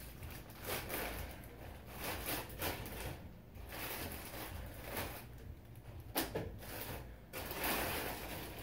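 Clear plastic bag crinkling and rustling in repeated bursts as a tripod is worked out of it, with one sharp click about six seconds in.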